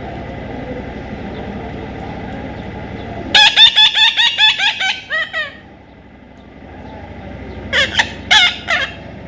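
A parrot gives a rapid run of about ten shrill calls starting about three seconds in, then a shorter burst of about four near the end, over a steady background hiss.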